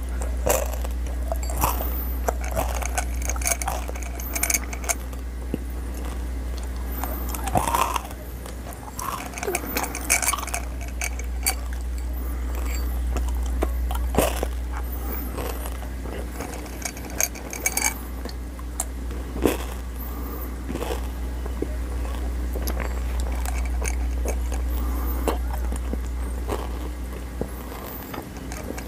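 Close-up chewing and crunching of candy-coated xylitol gum pellets, with scattered sharp clicks and clinks as the pellets knock against a glass tumbler. A steady low hum runs underneath.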